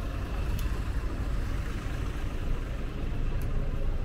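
Steady low rumble of road traffic in a city street, with two faint high ticks, one about half a second in and one near the end.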